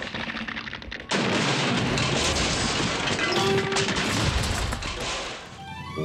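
Sudden loud cartoon crash effects about a second in: a rapid clatter of impacts lasting about four seconds, over background music.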